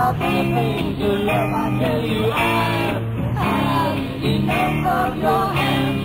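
Rock band playing live, with electric guitars and bass under a sung vocal line; the sound is narrow and dull, as on an old recording.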